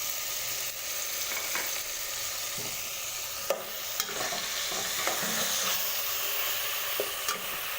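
Chicken pieces frying in hot oil in a pot with a steady sizzle, while they are stirred. A few sharp clinks of the spoon against the pot come about halfway through and near the end.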